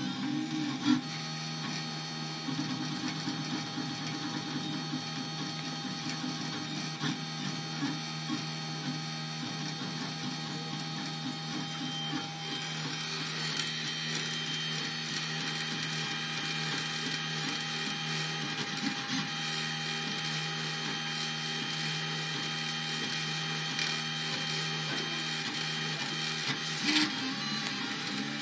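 Mendel Orca 3D printer running its first test print: the stepper motors whine in steady tones as the extruder carriage and bed move. There are a couple of sharp clicks, one about a second in and one near the end.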